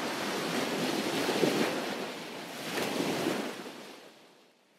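Sea water rushing and wind buffeting the microphone aboard a sailing catamaran under way, with two louder surges of water, fading out near the end.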